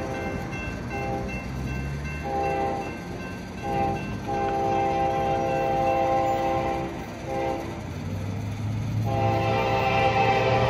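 CSX freight locomotive horn sounding for a grade crossing in a run of blasts: several short ones, a long blast of about two and a half seconds in the middle, another short one, then a long blast starting in the last couple of seconds. The diesel's rumble grows louder as the train nears, over the steady ringing of the crossing bell.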